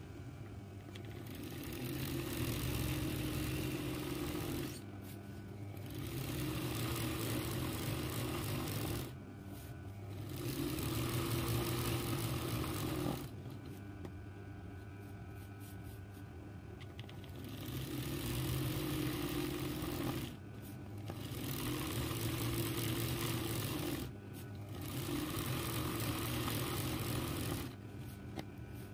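Zigzag sewing machine (RANEW 130) stitching free-motion embroidery, running in spells of a few seconds with short pauses between them and a longer pause of about four seconds in the middle.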